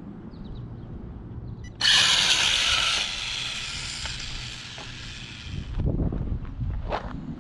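Electric RC drag car making a pass: a sudden loud, high-pitched whirr of motor and gears starts about two seconds in, then fades over the next few seconds.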